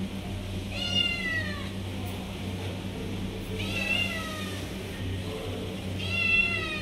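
Kitten meowing three times, about three seconds apart, each meow a long call that falls in pitch: begging for milk.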